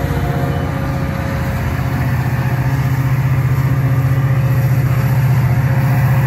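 Metra diesel locomotive's engine running under power as it pushes a departing commuter train away, a steady low drone that throbs rapidly and grows a little louder.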